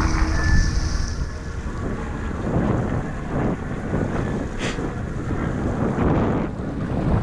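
Wind buffeting the microphone and water rushing and splashing around a windsurf board sailing through choppy sea, with a series of short splashes as the board hits the chop.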